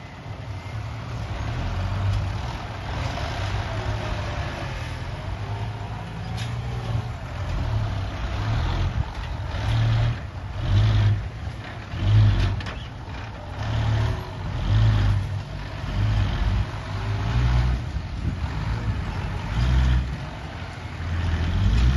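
Excavator engine running, its low rumble swelling and easing every second or two.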